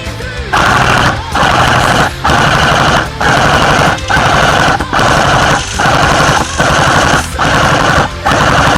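Automatic gunfire in repeated bursts of rapid shots, about nine bursts each under a second long with brief gaps between them.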